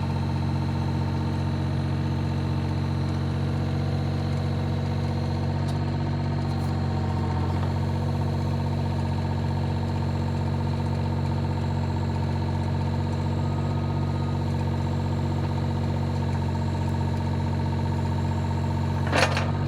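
Excavator engine idling steadily. A short sharp clunk near the end.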